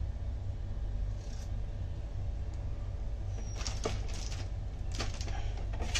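A few light knocks and clicks from kitchen handling, a faint one about a second in and a cluster of them in the second half, over a steady low hum.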